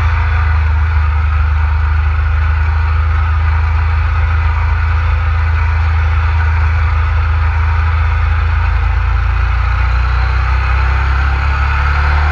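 Ducati 848's L-twin engine running at low, steady revs at riding speed, heard close up from on the bike, with a steady rush of wind. Near the end the revs start to rise as it accelerates.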